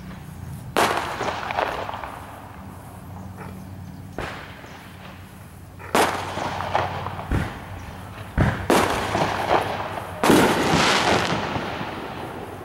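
About seven irregular sharp knocks and bangs, each trailing into a second or so of noisy rustle. The loudest come about a second in and near the end. A faint low steady hum runs underneath.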